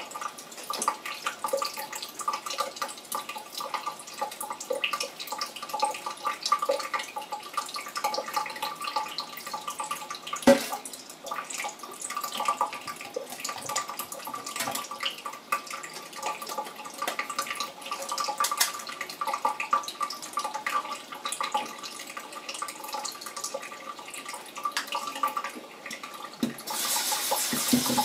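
Tap water running in a thin stream into a stainless steel sink, with small clicks and knocks from a plastic filter cartridge being handled and rinsed, one sharp knock about ten seconds in. Near the end the water gets louder and fuller as it is run through the cartridge held on the tap.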